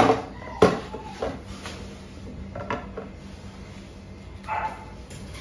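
Kitchen things being handled and set down on a wooden table: two sharp knocks in the first second, then lighter taps, and a short pitched cry about four and a half seconds in.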